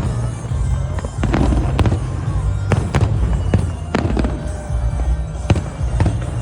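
Aerial fireworks bursting in a string of sharp bangs and crackles, roughly one every half second to a second, over a steady low rumble.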